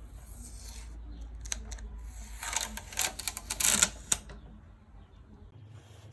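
A quick run of sharp clicks and rattles, like small hard parts being handled or snapped into place, bunched together and loudest about three to four seconds in.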